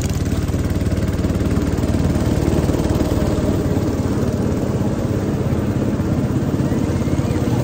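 Small petrol engine of a two-seat go-kart running steadily, with a fast, even low pulsing.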